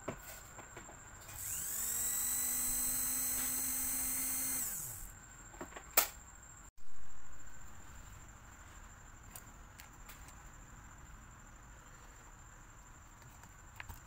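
Small electric motor of a Wigo hair dryer, run with its fan removed: it spins up about a second in, runs steady with a high whine for about three seconds, then winds down. A sharp click and a louder knock follow.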